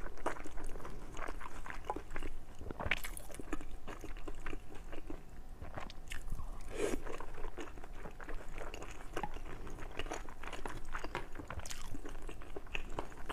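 Close-up crunching and chewing of crisp fried pork intestines, with many quick, irregular crackly bites.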